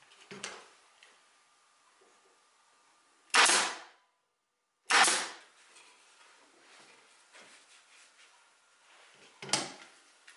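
Two loud, sharp shots of a staple gun about a second and a half apart, fixing upholstery fabric to a wooden chair seat, with quieter rubbing and rustling of the fabric under the hands and a smaller knock near the end.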